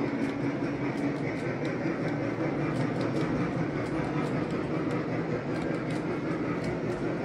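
Aristocraft G scale heavyweight passenger cars rolling along the track: a steady rumble of metal wheels on rails with faint, irregular clicks.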